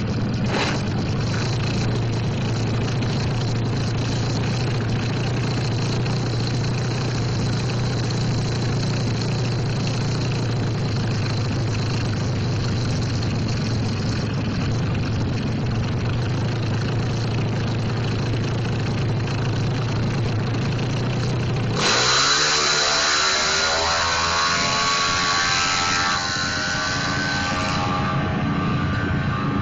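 Suzuki Satria FU drag motorcycle's four-stroke single-cylinder engine with a racing exhaust, running steadily for about twenty seconds. Then it suddenly revs hard, rising in pitch as the bike launches down the strip, and the sound drops away near the end.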